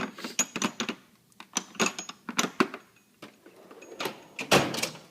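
Metal hand tools clicking and clinking against each other and the steel drawer of a tool chest, an irregular run of sharp clicks, some with a faint metallic ring. About four and a half seconds in comes a longer, louder scrape, the sound of a drawer being moved.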